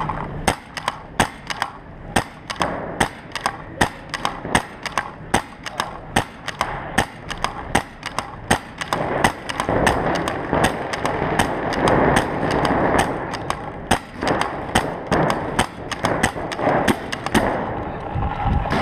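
Pump paintball markers firing, sharp pops coming irregularly at about two to three a second.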